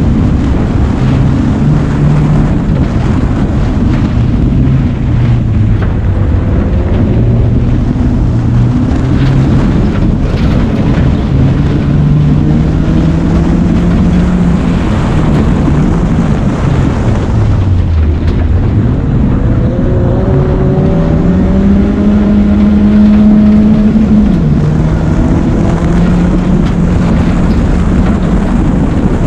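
A BMW race car's engine driven hard on a loose dirt rallycross track. The revs climb, hold and fall repeatedly with gear changes and lifts for corners, with a deep drop in revs a little past halfway. A constant rush of tyre, gravel and wind noise runs underneath.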